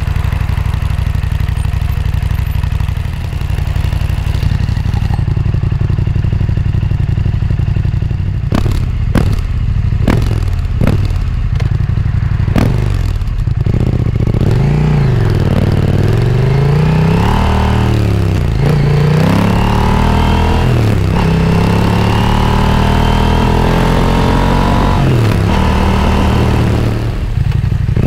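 KTM 890 Adventure's parallel-twin engine heard through an Akrapovic slip-on silencer, close to the muffler. It runs steadily at low revs, then gives a handful of quick throttle blips, and from about halfway the revs climb and fall again and again.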